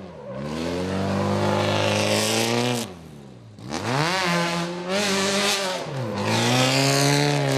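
Racing buggy's engine revving as it drives on asphalt. The pitch climbs, holds and eases off three times, with a brief lull about three seconds in.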